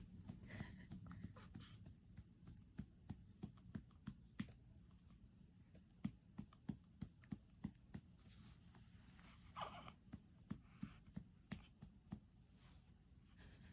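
Soft rhythmic pats of a hand on a newborn's back to bring up a burp, about three a second, in two runs with a short pause between. Two brief breathy sounds come between and after the runs.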